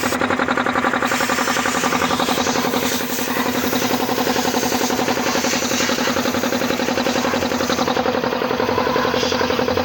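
Piston air compressor running steadily, a loud, even hum with a fast regular pulse.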